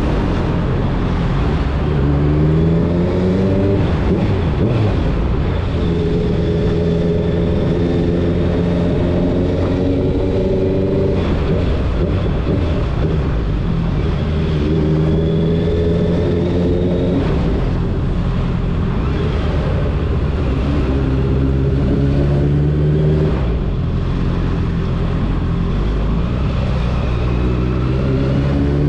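Motorcycle engine on the move, its pitch climbing and then holding steady several times as it pulls through the revs and cruises, under a constant rush of wind.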